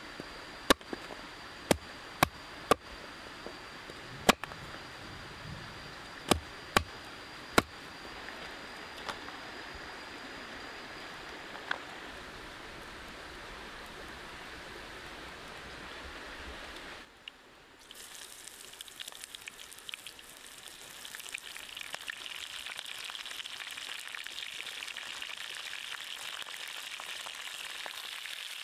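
Sharp knocks, about nine, scattered through the first twelve seconds over a steady hiss with a thin high tone; then, after a sudden break, food frying in a pan, sizzling and crackling and growing stronger.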